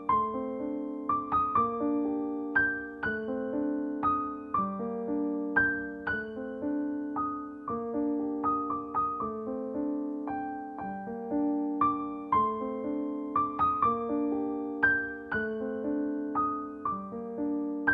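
Background piano music: a gentle melody of single struck notes over repeated chords, each note fading after it is played.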